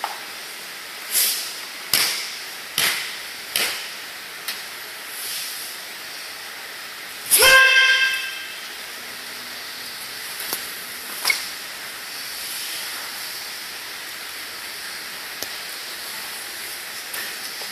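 Karate gi snapping with each fast technique of the kata Jion, about five sharp whooshes in the first four seconds, then one loud kiai shout about seven and a half seconds in. A few softer snaps follow, then only steady hiss as the kata closes.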